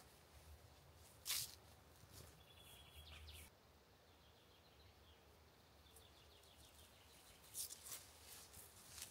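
Near silence: faint outdoor ambience with a few brief clicks or rustles, the loudest a little over a second in, and faint high bird chirps around the middle.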